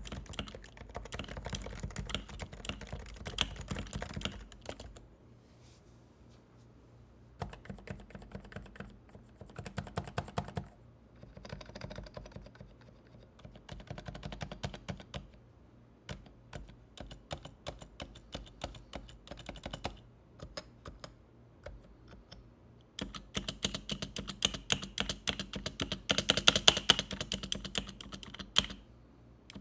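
Typing on a stock Realforce 87U SE170S keyboard, the silent variant with Topre electro-capacitive switches and variable key weight: runs of quick keystrokes broken by short pauses, with the densest and loudest run near the end.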